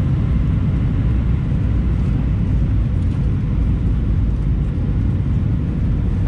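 Steady low rumble of Airbus A319 cabin noise, with a faint steady hum held throughout.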